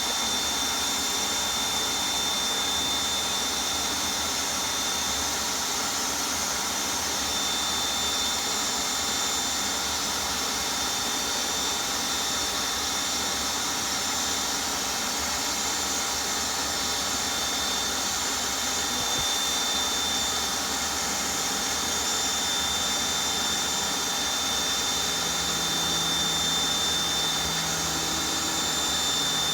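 Shop vac running steadily with a constant high whine, rigged as a bee vacuum that draws bees through a hose into a catch box.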